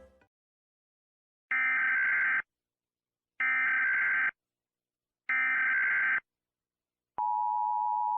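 Emergency Alert System SAME header: three identical screeching data bursts, each a little under a second long, evenly spaced with silence between. Near the end the steady two-tone EAS attention signal starts.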